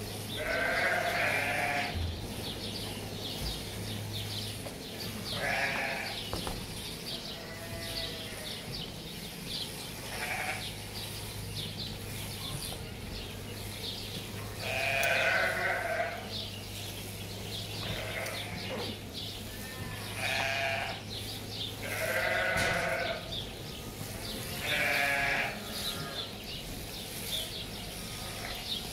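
Sheep bleating, one call of about a second every few seconds, about eight in all, some louder than others.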